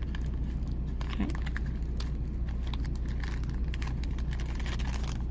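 Clear plastic zip bag crinkling and small stone beads clicking as a strand of round jasper beads is handled, over a steady low hum.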